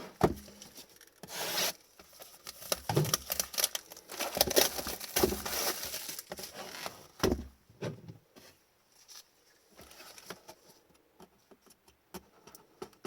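Shrink-wrap and cardboard rustling, rubbing and tearing as a sealed hobby box of Upper Deck hockey cards is opened and its packs handled, with small clicks and taps; busiest in the first two-thirds, quieter near the end.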